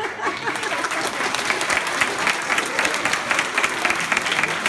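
A large audience of schoolchildren applauding, the clapping breaking out at once and going on steadily, at the end of a performance.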